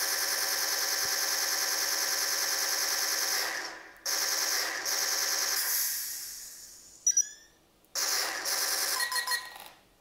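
DC-17m blaster prop electronics kit playing rapid-fire blaster shot effects through its small speaker. It is a continuous machine-gun-like stream that stops and restarts a few times. About seven seconds in come a few short chirps sliding in pitch, and the sound cuts out near the end.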